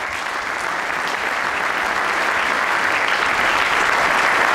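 Audience applauding, the clapping growing steadily louder.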